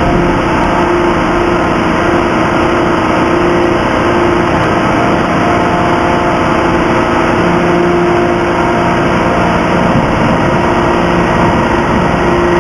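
Hydraulic free forging press running steadily, with a constant mechanical drone and a steady whine over it.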